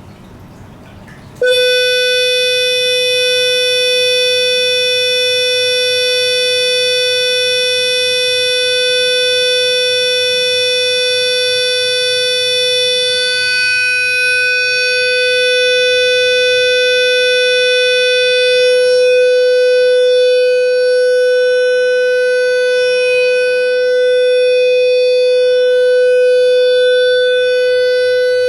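Loud, steady, mid-pitched electronic test tone, rich in overtones, played through speakers as a hearing stimulus. It starts abruptly about a second and a half in and holds unchanged in pitch.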